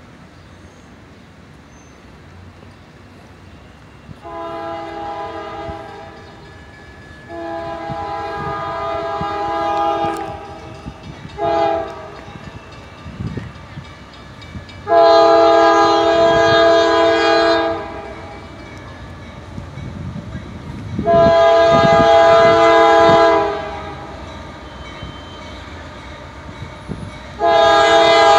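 Multi-tone air horn of an approaching CSX diesel freight locomotive sounding the grade-crossing signal: two long blasts, a short one and a long one, then two more long blasts. The blasts grow louder as the train nears.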